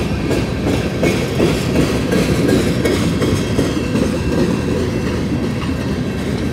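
Union Pacific freight train's cars rolling past close by, a steady loud noise of wheels on the rails.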